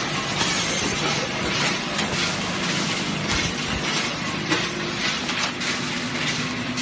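Automatic ice cube packing machine running, a steady mechanical noise with a faint hum.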